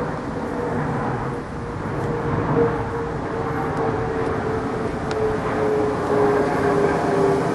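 Distant engine drone: a steady rumbling hum that slowly falls in pitch and grows a little louder toward the end.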